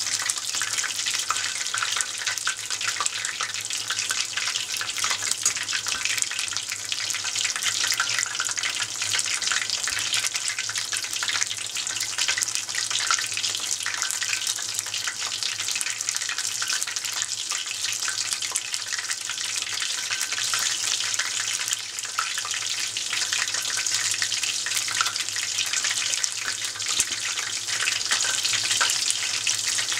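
Battered tempura deep-frying in a pot of hot oil: a steady, dense sizzle and crackle of bubbling oil.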